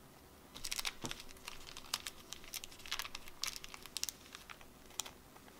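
Clear plastic card sleeve crinkling in the hands in irregular short crackles while a trading card is put into it.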